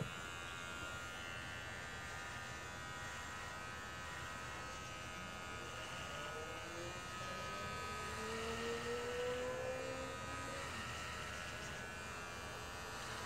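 Electric hair clippers buzzing steadily as they are run over a nearly shaved scalp to take off the last patches of long hair. A faint slow rising tone sounds a little past the middle.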